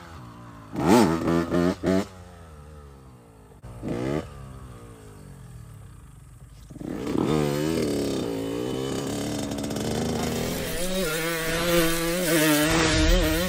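2001 Honda CR80 two-stroke dirt bike engine revving in short throttle bursts, its pitch rising and falling. It grows louder and runs more continuously from about seven seconds in.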